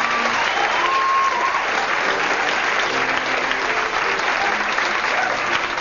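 Audience applauding steadily, a dense clapping crowd.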